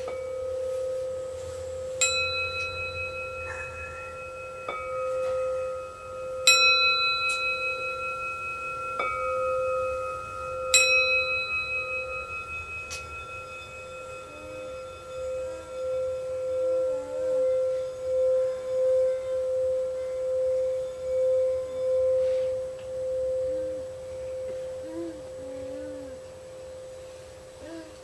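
Improvised duet of a crystal singing bowl and a small metal singing bowl. A steady sustained bowl tone pulses and wavers throughout. Over it the metal bowl is struck with a mallet about five times in the first half, each strike ringing out with bright high overtones that slowly fade.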